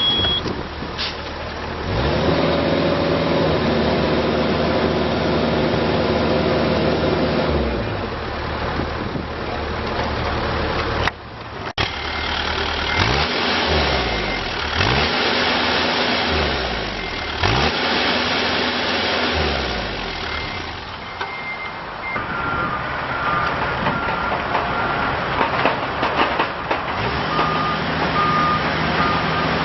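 Diesel engine of a Bobcat E42 mini excavator revving up and running at high revs, then dropping back, with the revs rising and falling several times as the machine is worked. Intermittent beeping from a warning alarm sounds over the engine at times.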